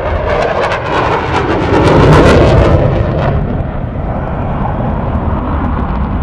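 Jet aircraft flying past low and loud, its roar crackling and peaking about two seconds in, then turning to a duller rumble as it passes and moves away.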